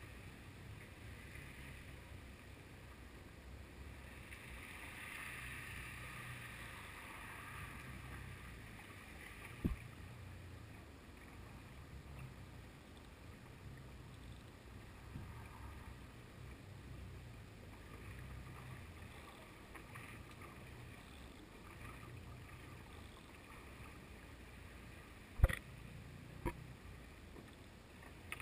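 Muffled underwater sound picked up by a GoPro inside its waterproof housing on a lead cod jigger: a faint, uneven low rumble of water moving around the housing, with a few sharp knocks, one about ten seconds in and a louder cluster near the end.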